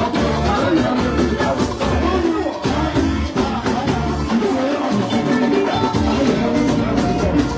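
Music with a steady, pulsing bass beat.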